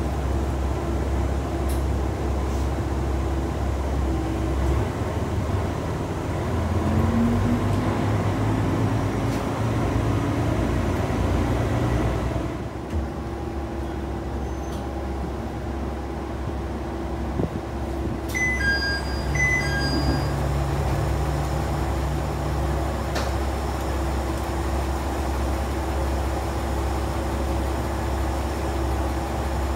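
Cabin noise inside a Kanto Railway KiHa 2100 diesel railcar under way: a steady low drone of the engine and running gear, with its pitch rising for a moment about seven seconds in. About twelve seconds in the sound drops in level for several seconds. A few short high electronic beeps sound about eighteen seconds in.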